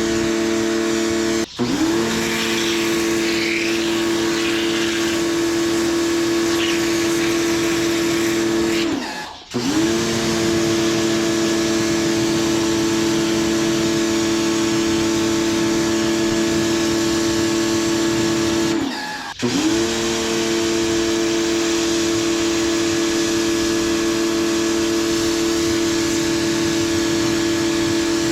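Kawasaki ACK-302 electric high-pressure washer running, a steady motor hum over the hiss of the spray. Three times the motor winds down and stops for a moment, then spins back up with a rising whine, as the trigger is let go and squeezed again.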